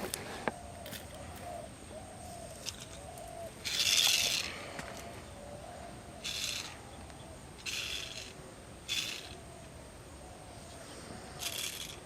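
A bird calling over and over with short, low hooting notes, roughly one or two a second, over a steady high insect whine. Several brief hissy rustles break in, the loudest about four seconds in.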